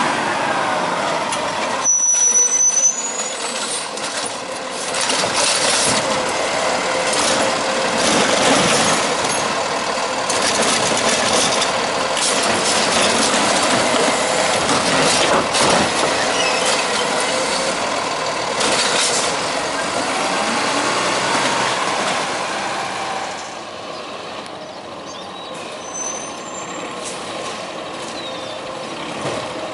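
Peterbilt 520 garbage truck with a Heil STARR automated side-loader body working the street: its diesel engine runs and its hydraulics drive the lifting arm, with air brakes in use. The noise is quieter in the last few seconds.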